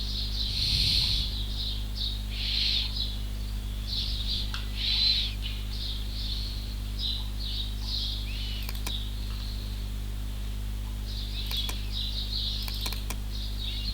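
Small birds chirping in the background, many short high chirps at irregular intervals, over a steady low electrical hum.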